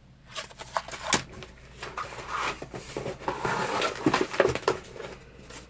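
Packaging and items being handled while unpacking a box: irregular rustling, crinkling and small clicks of plastic and cardboard.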